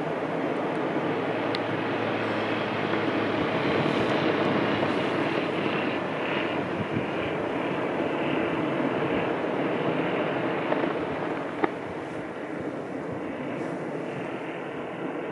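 Lava fountains of an erupting basaltic vent making a steady, rushing roar, with a single sharp crack near the end.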